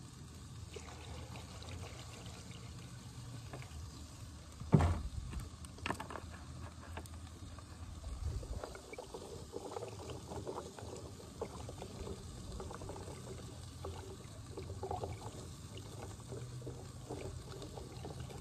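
Water poured from a large plastic water jug into a plastic tub of baby carrots, then the carrots swished by hand in the water to rinse them. A sharp knock about five seconds in, with a smaller one just after.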